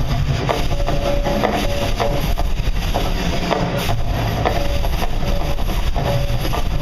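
The Mirage volcano show's eruption sound effects: a loud, steady low rumble with short knocks recurring about once a second.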